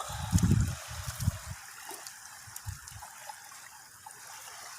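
Water trickling and dribbling, with low sloshing surges in the first second and a half.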